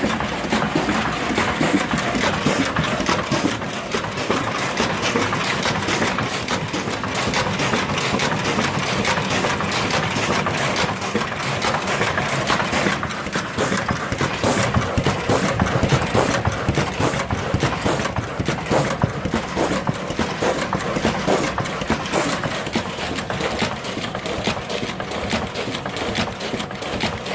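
Leafcutter bee harvesting machinery, used to punch bee cells out of nesting boards and break them apart, running steadily with a dense, rapid mechanical clatter.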